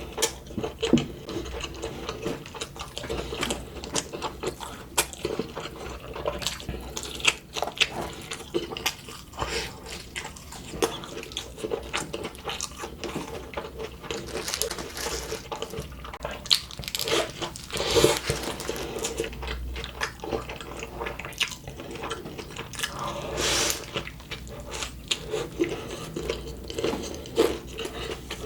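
Close-miked chewing and wet smacking mouth sounds of a person eating McDonald's fast food, with many irregular small clicks and bites.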